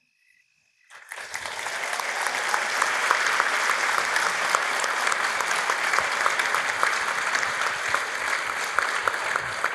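Audience applauding, starting about a second in after a brief silence, building quickly and then holding steady.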